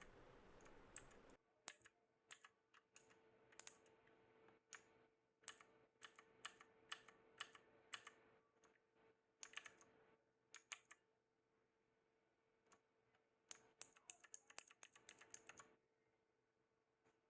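Faint keystrokes on a Cosmic Byte GK-16 Firefly mechanical keyboard with clicky Outemu Blue switches: scattered key presses, a pause of about three seconds, then a quick flurry of keystrokes near the end.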